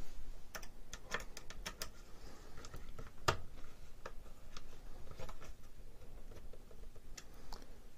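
Hands fitting an LCD controller panel in a plexiglass case onto 3D-printed PLA brackets: scattered, irregular light clicks and taps of plastic parts, the loudest a little over three seconds in.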